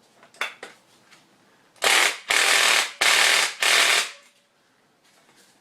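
Impact driver hammering the clutch nut tight onto the moped's clutch in four short bursts of rattling, back to back, about two seconds in.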